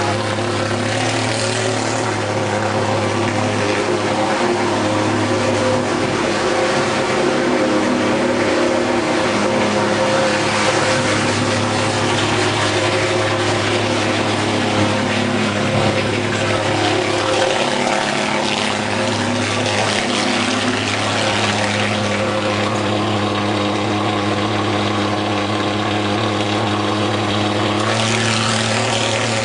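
Handheld pulse-jet thermal fogging machine running and blowing out thick fog, with a steady, loud buzzing drone that holds one pitch throughout.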